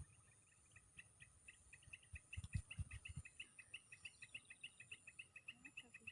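Faint bird calls: a rapid, even run of short two-part notes, about five a second. They play over a steady high insect whine, with a few low thumps about two and a half seconds in.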